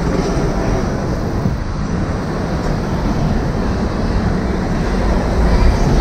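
Steady vehicle and road noise with a heavy low rumble, growing a little louder near the end.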